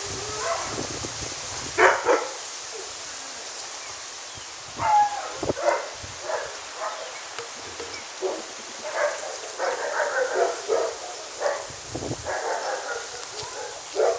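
Dogs barking and yipping in short, scattered bursts, some calls bending in pitch.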